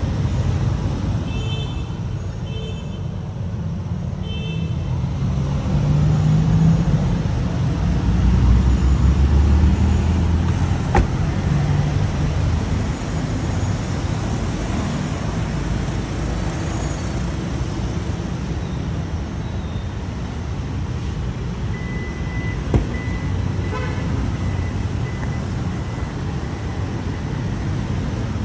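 Street traffic: a steady low rumble of passing vehicles that swells for a few seconds as a heavier vehicle goes by, with three short high beeps near the start and a couple of sharp clicks.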